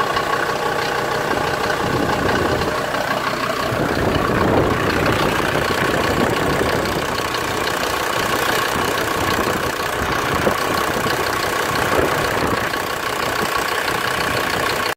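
Mercedes-derived 2.9-litre turbodiesel in a 1991 Ford Explorer idling steadily and running fine.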